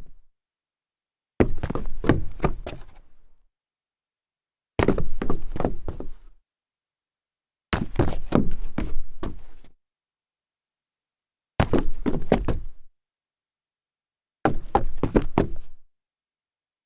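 Foley of feet stumbling on solid wood: repeated takes, each a quick uneven cluster of thuds and knocks lasting a second or two, separated by silence. The tail of one take ends right at the start, then five more follow.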